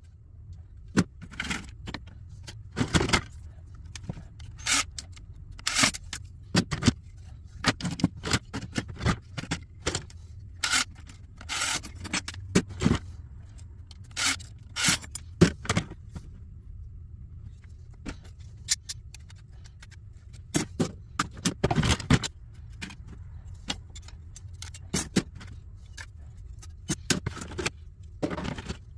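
Irregular metallic clinks, clatter and scraping as computer slot cards are stripped: steel mounting brackets, screws and hand tools handled and dropped on a wooden workbench. A low steady hum runs underneath.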